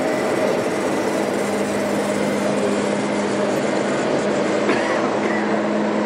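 Radio-controlled scale model trucks driving: a steady mechanical running noise with a constant low hum.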